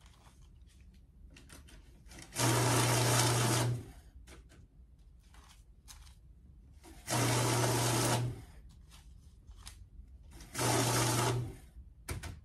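Electric banknote counting machine running three times, each run a little over a second of steady motor hum and a rapid flutter of bills feeding through it. Faint rustles and clicks of paper bills being handled between the runs.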